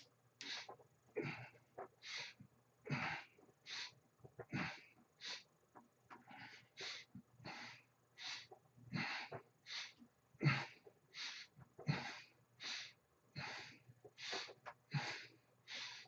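A man breathing hard and fast while doing dips on a dip station, with a sharp breath about every three-quarters of a second.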